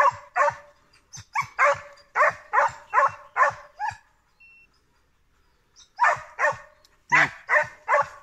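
A boar-tracking dog barking in a steady run, about two to three barks a second, giving tongue while working a wild boar's trail. The barking stops for about two seconds midway, then starts again.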